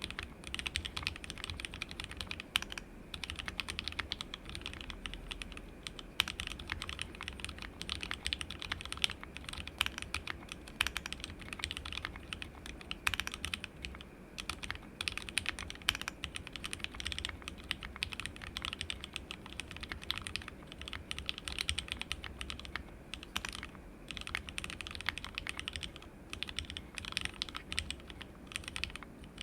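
Continuous fast typing on a plateless custom mechanical keyboard: lubed, filmed 43 Studio Toy linear switches soldered straight to a flex-cut WT60-D PCB in a resin case, under ABS Cherry-profile keycaps. It is a steady stream of clicky-thocky keystrokes with brief pauses between bursts.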